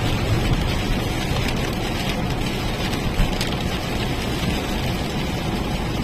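Car driving along a road: a steady low rumble of engine and tyres under a continuous hiss, with a brief tap about three seconds in.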